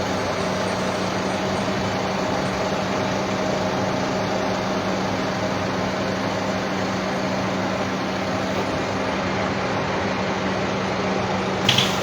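A heavy machine's engine running steadily, a constant drone with a low hum. A short sharp knock comes near the end.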